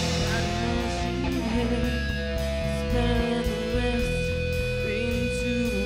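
Live rock band playing an instrumental passage: electric guitar holding long notes over electric bass and drums.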